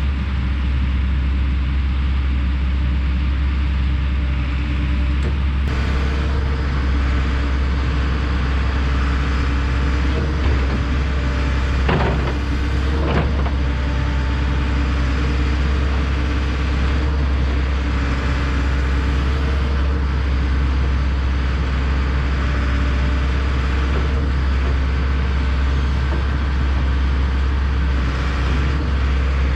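Kobelco SK210LC-10 hydraulic excavator's diesel engine running steadily, with two short knocks about twelve and thirteen seconds in.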